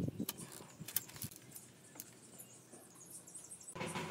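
Metal tape-measure blade and marker pen handled against a pine board: a few sharp clicks and light ticking. Near the end a louder sound with a steady pitch begins.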